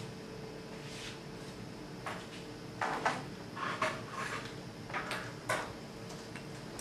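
Scattered rustles and light knocks of paper and craft materials being handled on a table, several short ones in the second half, over a steady faint hum.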